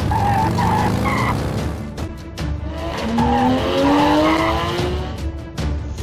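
Chase sound effects: vehicle engines revving up in rising pitch, with short tyre squeals, over driving background music.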